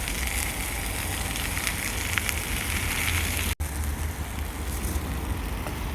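Burgers frying, a steady sizzle and crackle over a low wind rumble. The sound drops out for an instant about halfway through.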